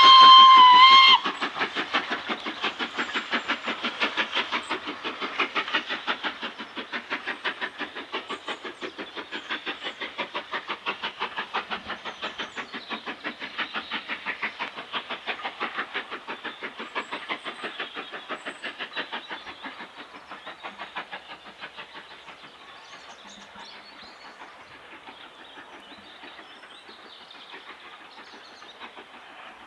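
LNER B12 4-6-0 steam locomotive, with two inside cylinders, gives a short whistle of about a second, then works away with a regular, even chuffing exhaust beat. The beat fades steadily as the engine draws off into the distance and is faint near the end.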